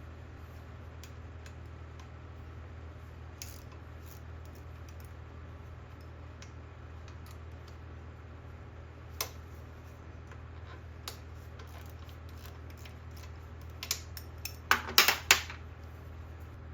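Scattered light clicks and taps of tools and small parts being handled, with a quick cluster of louder clinks near the end, over a steady low hum.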